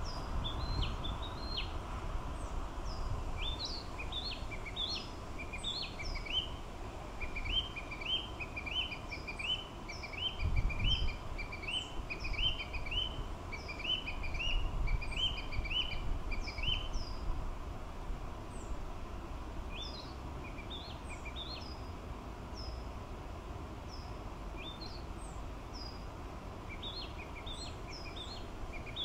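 Male narcissus flycatcher singing: phrase after phrase of short, high whistled notes, including a long run of quickly repeated notes in the middle and a brief pause about two-thirds of the way through, over a low background rumble.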